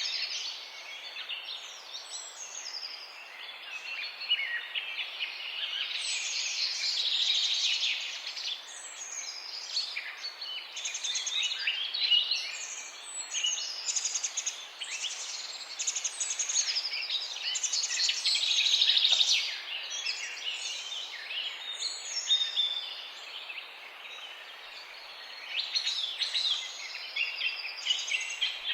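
Several birds singing and chirping together in a morning chorus, overlapping high chirps and trills, with busier stretches of song.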